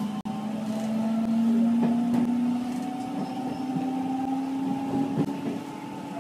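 Electric train accelerating from a stop: the traction motors whine in steady tones that rise slowly in pitch as speed builds, with a few clicks from the wheels passing over rail joints and points.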